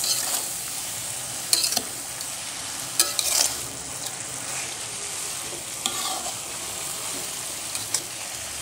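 Shredded young papaya sizzling in a metal wok while it is stirred. A spatula scrapes and knocks against the pan about four times.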